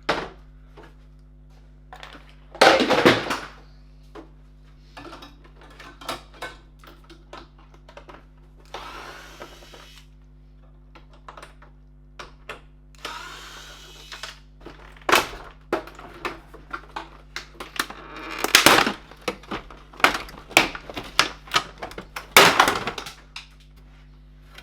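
Clatter of a dehumidifier being taken apart by hand: irregular clicks and knocks of metal and plastic parts being handled and pried loose, with a few louder crunching bursts and two short stretches of rough scraping or whirring.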